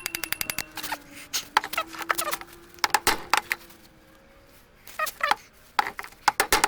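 Metal automatic-transmission parts clicking and clinking as they are handled and fitted together. A quick run of light ringing clicks comes first, then scattered clusters of knocks.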